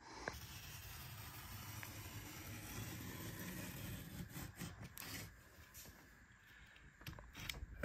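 A utility knife cuts cardboard along a steel framing square, giving short light scraping strokes near the middle and again near the end. A faint low steady rumble lies under the first half.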